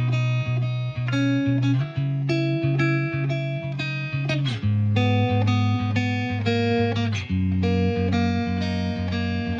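Background music: plucked guitar picking out a steady run of notes over sustained bass chords that change about every three seconds.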